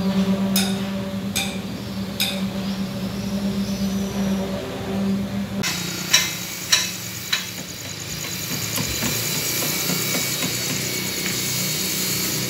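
Concrete pump running at a concrete pour: a steady engine hum with sharp knocks about every 0.8 seconds. About halfway through it changes abruptly to a noisier machine din with a fast pulsing high whine and three more knocks, then a steady din.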